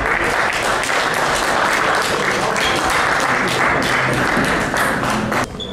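Spectators applauding, a dense run of clapping that stops abruptly near the end.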